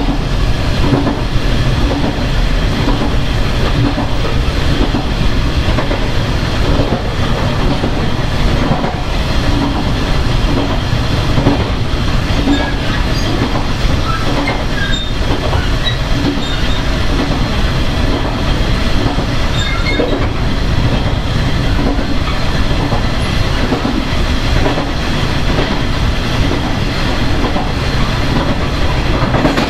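Taiwan Railways EMU300 electric multiple unit running at speed, heard from its vestibule: a steady loud rumble of wheels and running gear, with wheels clattering over rail joints. A few short high wheel squeaks come about halfway through.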